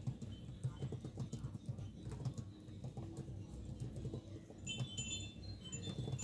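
Home background noise: a low rumbling hum with scattered clicks, joined about five seconds in by a cluster of short high-pitched tones.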